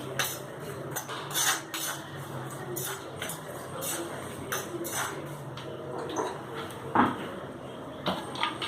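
A metal spatula stirring and scraping whole spices in a hot pan during dry-roasting, with irregular clinks and scrapes several times a second and one louder knock about seven seconds in.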